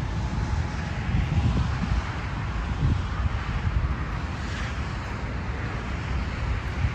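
Wind buffeting the microphone, with the noise of a passing aircraft swelling to a peak about four and a half seconds in and then fading.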